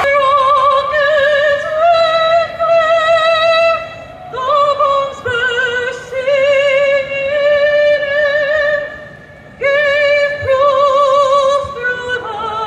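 A woman singing solo in an operatic style, with wide vibrato on long held notes and short breaths between phrases. A crowd starts to cheer right at the end.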